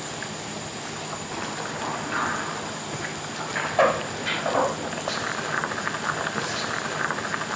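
Doenjang jjigae bubbling at a simmer in a pot, a steady fine crackle, with a wooden spoon stirring through the stew a little before halfway.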